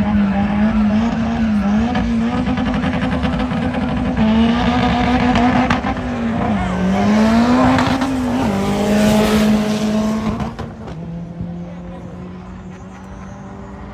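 Drag car engine held at high revs with tyres squealing, as in a burnout. The revs dip and climb back about seven seconds in. The sound then falls off sharply about ten and a half seconds in, leaving a quieter steady engine drone.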